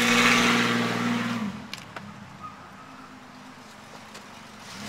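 Small pickup truck's engine revving hard as it accelerates away. The loud engine note drops off about one and a half seconds in, leaving a quieter stretch with a faint engine hum before an engine note returns near the end.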